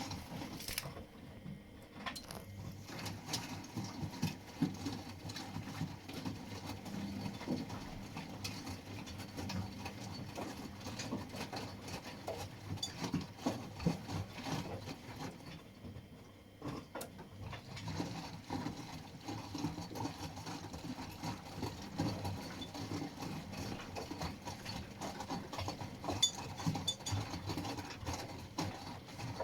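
Washing machine running a wash cycle: the motor hums while the drum turns and the laundry tumbles with irregular clicks and knocks. The drum goes quiet briefly twice, about two seconds in and again about sixteen seconds in.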